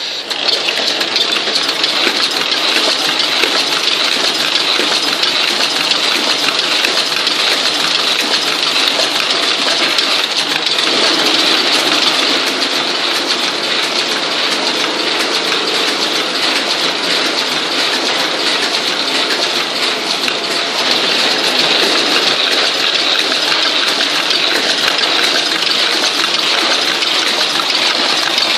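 Sapal BB chocolate-bar wrapping machine running at a steady pace: a continuous, bright mechanical clatter with no break.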